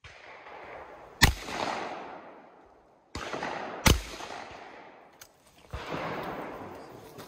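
Two shotgun shots about two and a half seconds apart. Each is a sharp crack followed by a rolling echo that dies away over a second or so.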